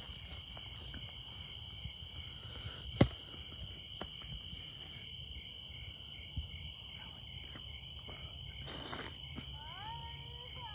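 Night insects giving a steady high-pitched drone, with a single sharp click about three seconds in as the loudest sound. Near the end comes a brief rustle and then a short rising pitched call.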